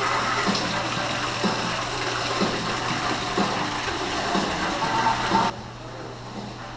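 Steady rushing-water sound effect, with a soft low thud about once a second and a steady low hum underneath. It cuts off suddenly about five and a half seconds in, leaving a quieter hum.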